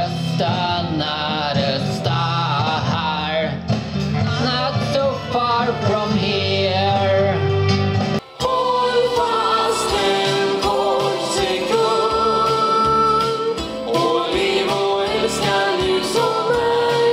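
Solo singing into a microphone over a music backing track. Just past the middle there is a short break, after which a different accompaniment starts and the voice holds long notes.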